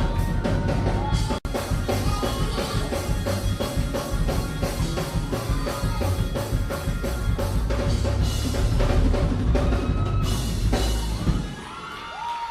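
Music with a full drum kit, bass drum and cymbals playing a steady beat. There is a split-second gap about a second and a half in, and the drums and bass stop about a second before the end, leaving quieter sound.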